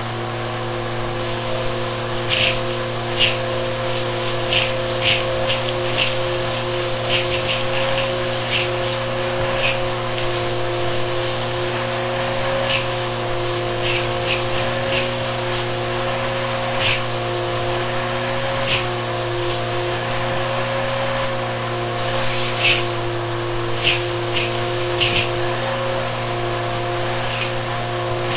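Bissell vacuum cleaner running steadily with a high whine, its hose wand sucking up a pile of sand and debris from carpet. Irregular crackling clicks come through the whole time as grit and bits rattle up the hose.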